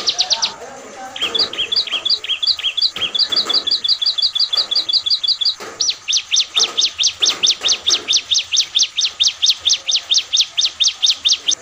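A caged ciblek singing in full, sustained song: a quick burst of high notes, then a run of paired chirps, then from about six seconds in a long fast series of sharp repeated notes, around six a second.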